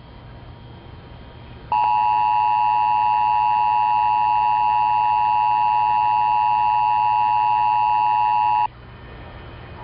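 Emergency Alert System attention signal: two steady tones sounding together in a harsh electronic alarm. It starts about two seconds in and cuts off abruptly about seven seconds later, signalling that an emergency alert message follows.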